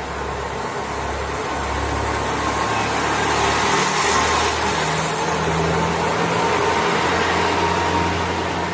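Diesel railcar engine running, with a low steady hum and a rush of noise that swells to its loudest about four seconds in and then eases off; the engine note shifts about halfway through.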